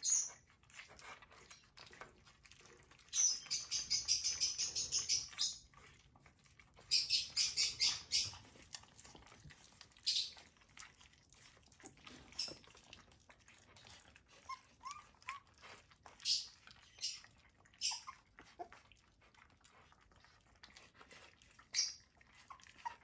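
Xoloitzcuintle puppies eating soft, wet puppy food from stainless steel bowls: wet smacking and lapping, with two runs of fast, rhythmic smacks at several a second about three and seven seconds in, and scattered single smacks and clicks in between.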